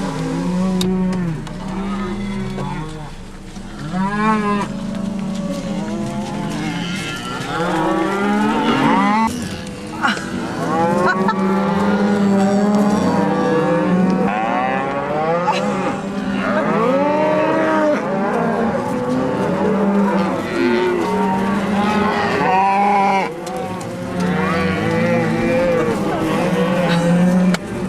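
A herd of cattle on a drive, many cows and calves mooing and bawling at once, the calls overlapping continuously.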